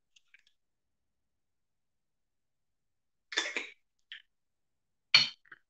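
A man clearing his throat with short coughs, twice, about three and a half and five seconds in.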